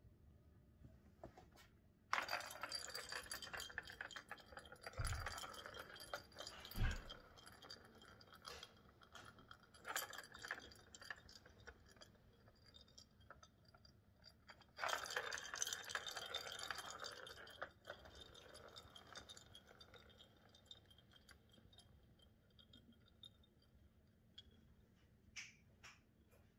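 A plastic ball rolling and rattling round a Catit ball-track cat toy as a cat bats it. It comes in two spells a few seconds long, with scattered clicks between, and two low thumps come during the first spell.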